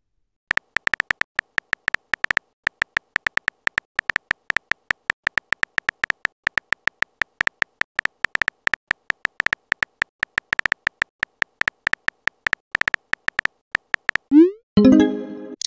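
Phone keyboard typing sound effect from a texting app: rapid short clicks, one per letter, with small pauses between words. Near the end comes a short rising blip as the message is sent.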